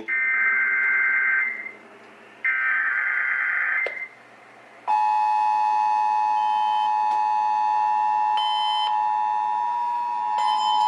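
Emergency Alert System monthly test broadcast by WCBS, heard on a radio: two bursts of screechy header data tones, each about a second and a half, then about five seconds in the steady two-tone attention signal.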